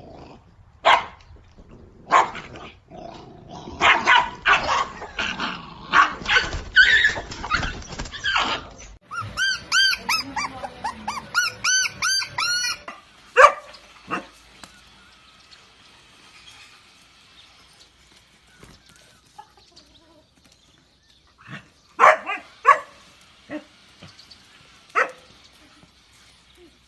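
Puppies yelping and barking in short, separate bursts, with a run of quick, high rising-and-falling cries about nine seconds in and a few sharp yelps near the end.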